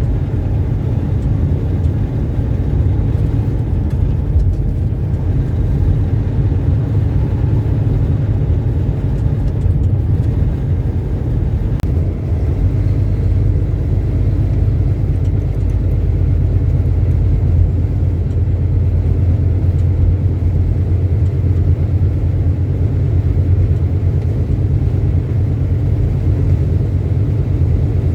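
Semi truck driving at steady speed: a continuous low rumble of engine and road noise that does not change.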